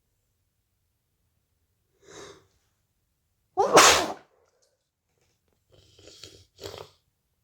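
A person with a head cold sneezing once, loud and sharp, a little over halfway through. A quieter breathy sound comes before it, and two short breathy sounds follow near the end.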